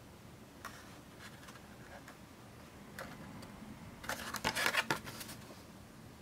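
A toy car's blister pack being handled and turned over in the fingers: the cardboard card and plastic blister rustling and crinkling, with a few faint taps and a louder burst of rustling about four seconds in that lasts about a second.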